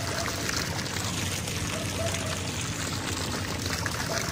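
Water running and pouring steadily from an outdoor tap or pipe, a continuous splashing hiss.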